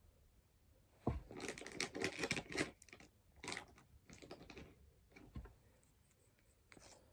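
Close handling noise from small objects being picked up and moved: a quick run of clicks, rattles and rustles about a second in, lasting under two seconds, then a few shorter clicks and rustles.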